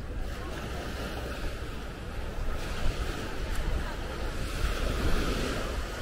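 Sea surf breaking and washing up a beach, swelling about halfway through and again near the end, with wind rumbling on the microphone.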